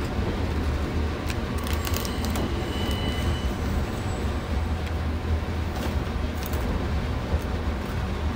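Steady low hum inside a 117-series train car standing at a station, with a thin plastic snack bag crinkling in hands, mostly in the first few seconds and again briefly around six seconds in.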